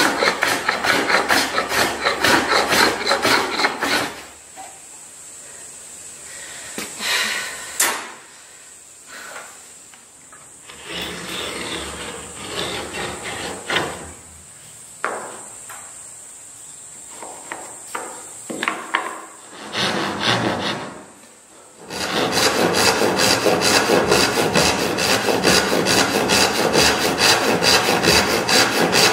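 A sanding block rubbing along a wooden board's edge in fast, even strokes. After about four seconds it gives way to a quieter stretch of scattered scrapes and taps on wood, with a faint steady high tone. Quick rhythmic rasping strokes on wood start again about 22 seconds in.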